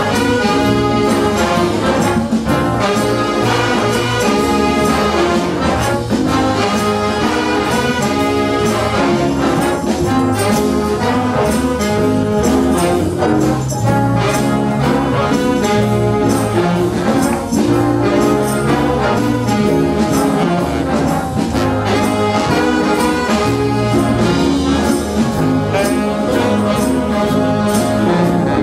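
Jazz big band playing live, with saxophones, trumpets and trombones sounding together over low bass notes.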